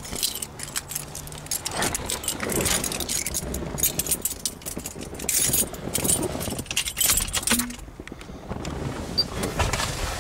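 A bunch of keys jangling and clinking as they are handled, in a run of irregular metallic clicks.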